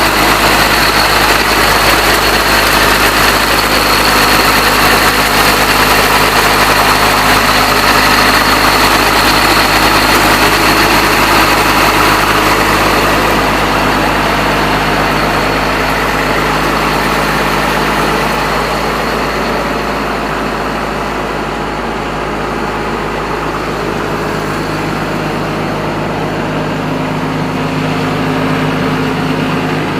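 Komatsu PC200-8 hydraulic excavator's six-cylinder turbo diesel engine running steadily. It grows somewhat quieter and duller about halfway through.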